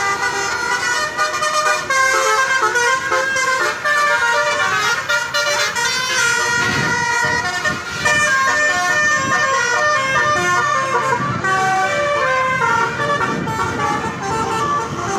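Tourist bus's telolet horn, a multi-tone air horn, playing a loud, continuous run of quick stepping notes.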